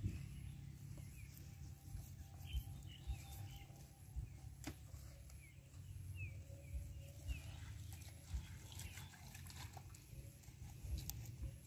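Faint low rumble with scattered soft clicks and knocks from a knife cutting fish and hands handling vegetables, and a run of faint short high chirps in the middle.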